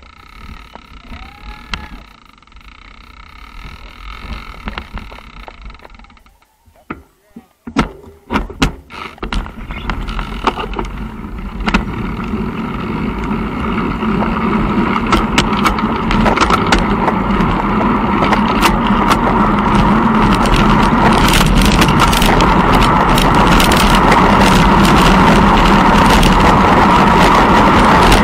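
A few sharp clicks and knocks, then a steady rushing noise with a low hum that grows louder over about twenty seconds, like wind and movement noise on a camera picking up speed.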